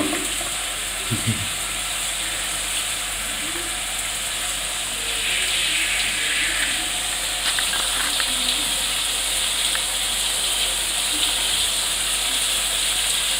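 Shower spray running steadily with a hiss, growing a little louder about five seconds in.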